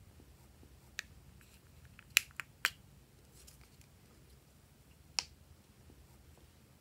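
Short, sharp plastic clicks from a small hinged plastic glitter case being handled and tapped while glitter is shaken out over slime. One comes about a second in, a quick group of three a little after two seconds, and one more about five seconds in.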